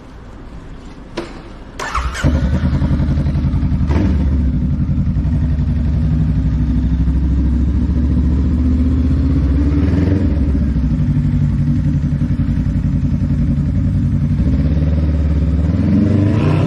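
Honda Rebel 500's parallel-twin engine being started: a click, a brief crank about two seconds in, then it catches and settles into a steady idle. A light blip of the throttle comes near the end.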